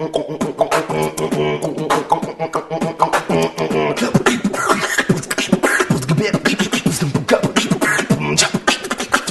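Background music: a vocal track with a singing voice over a steady, clicking beat.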